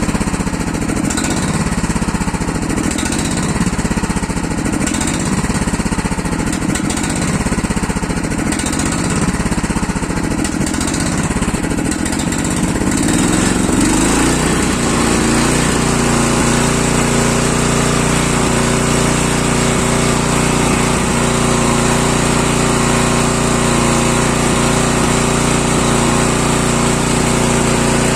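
Swaraj tractor diesel engine running with an uneven, pulsing beat that swells and fades regularly every second and a half or so, then changes about halfway through to a steadier, even running note. The title calls this an engine sound problem, a 'missing' (misfiring) fault.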